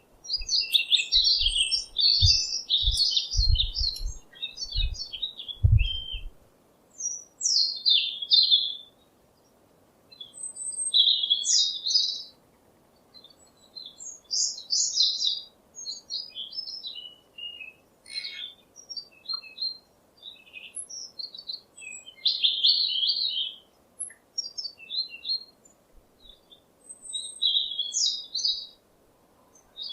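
A songbird singing, short bright chirping phrases repeated with brief pauses between them. Low dull thumps come and go through the first six seconds.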